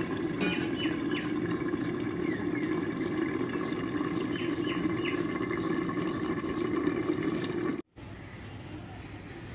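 Fish curry simmering under the lid of a covered pan on a low flame: a steady bubbling hiss that stops abruptly near the end.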